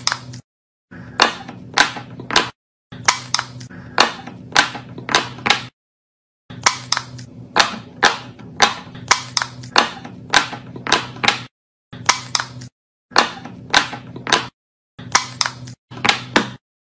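Fidget toy being pressed over and over: a series of sharp pops, about two a second, over a low steady hum, in short runs that cut off abruptly.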